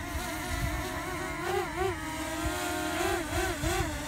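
DJI Mini 2 drone hovering low, its propellers giving a steady buzz whose pitch wobbles up and down several times as the drone turns and adjusts its position.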